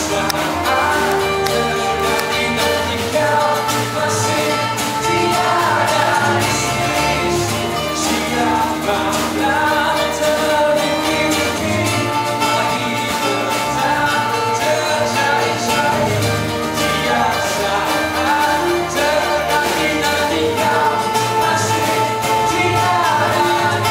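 Live band playing a song: strummed acoustic guitars and drums, with a male lead voice singing throughout.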